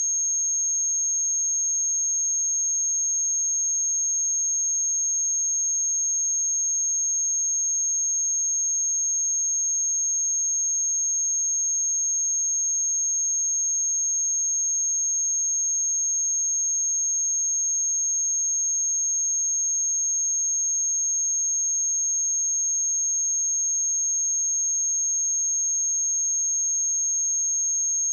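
A continuous pure 6486 Hz sine-wave test tone: one steady high-pitched whistle that holds the same pitch and loudness throughout.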